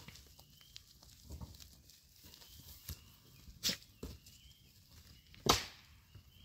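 Highland cattle feeding on hay: quiet rustling and crunching of dry hay, with two sharp snaps about halfway through and near the end, and faint high chirps in the background.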